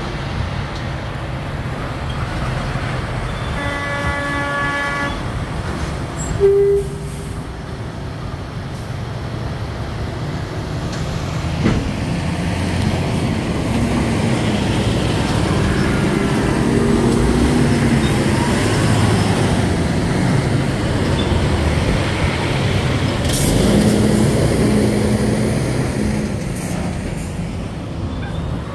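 Diesel semi-trucks hauling shipping containers running past on the road, with a horn sounding for about a second and a half roughly four seconds in and a short loud toot a couple of seconds later. The engine noise grows louder through the second half.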